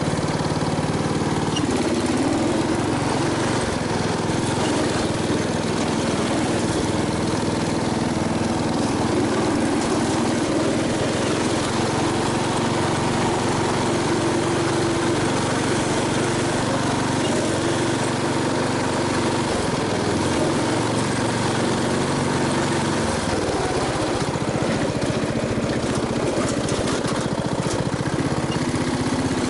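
MTD riding mower's engine running steadily while the mower is driven, its pitch wavering slightly at times.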